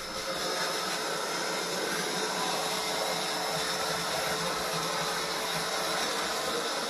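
Vacuum cleaner running steadily, sucking up dust from drilling.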